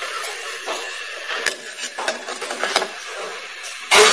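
Metal idli mould plates knocking and clinking as they are handled and filled with batter: a few sharp taps, then a louder clatter near the end.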